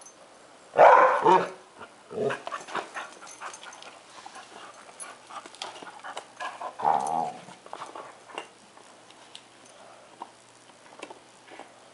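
Airedale terrier vocalizing in frustration over another dog's rawhide, a tantrum of short bark-like outbursts: the loudest about a second in, smaller ones around two and seven seconds in.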